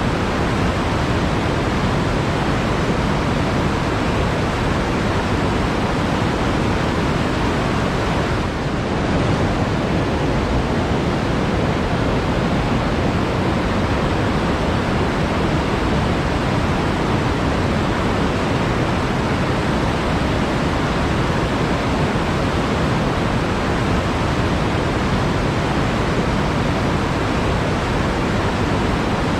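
Flowing water rushing steadily, a dense, even wash of noise with no breaks.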